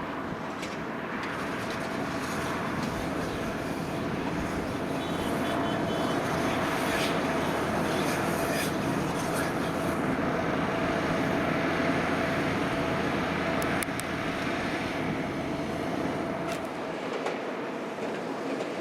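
Farm tractor running steadily while working field machinery, getting a little louder for most of the stretch and easing off again about two-thirds of the way through.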